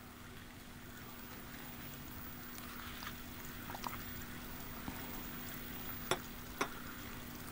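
Quiet ambience with a steady low hum, broken by a few faint clicks and then two sharp, louder clicks about half a second apart near the end.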